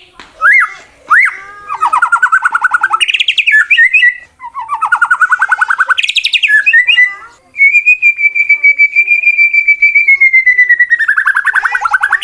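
A male white-rumped shama (murai batu) sings a challenging, fight-provoking song. It starts with sharp rising whistles, then two fast rattling trills. Later comes a long, high, rapidly pulsed note held for about four seconds, which drops into another trill near the end.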